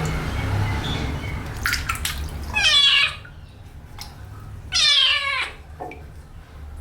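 A kitten meowing twice, loud and high, about two seconds apart, the second call a little longer, while it is being bathed. Water noise runs underneath in the first couple of seconds.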